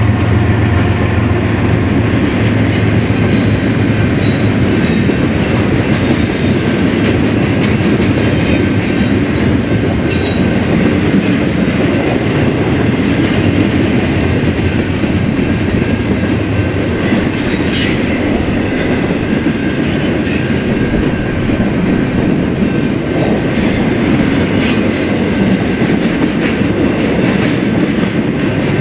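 Freight train cars rolling past loudly: a steady rumble of steel wheels on rail with repeated clicks over the rail joints. A low drone fades out over the first few seconds.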